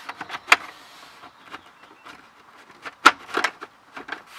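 Scattered sharp clicks and knocks of a hard plastic trim panel being handled and fitted, the loudest about half a second in and about three seconds in.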